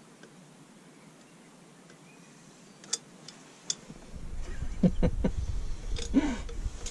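A few sharp clicks from a caulking gun loaded with a tube of silicone being handled, then a low rumble with several knocks from the camera being picked up and moved.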